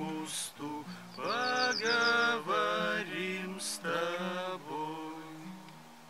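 A man singing to acoustic guitar accompaniment. The singing stops about four and a half seconds in, and the guitar's last notes ring on and fade.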